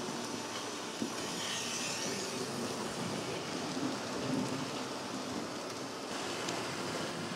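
HO-scale TRIX V 200 model diesel locomotive, refitted with a Lemo-solar motor, running along the track with its passenger coaches: a steady rolling rattle of wheels on the rails, with one short click about a second in.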